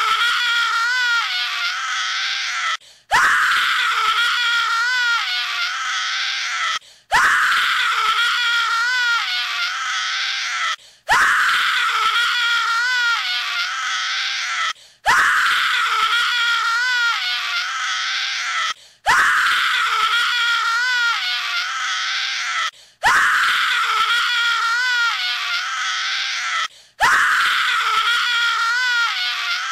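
A horror scream sound effect played as a loop: a high, wavering scream that repeats identically about every four seconds, each pass cut off by a brief gap.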